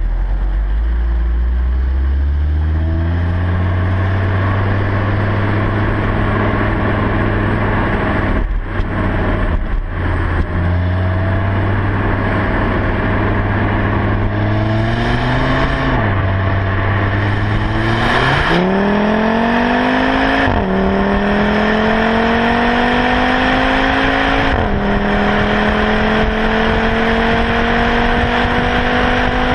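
Stock Audi RS3 Sportback's 2.5 TFSI turbocharged five-cylinder engine and exhaust under acceleration. The engine pitch climbs slowly at first, then from about eighteen seconds in it climbs hard under full throttle and drops sharply at each upshift, twice and again near the end.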